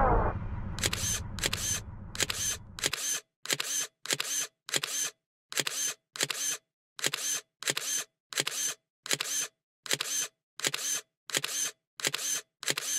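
A sound effect of short, crisp clicks repeating evenly about twice a second, with dead silence between each. The fading tail of a shattering crash dies away in the first few seconds.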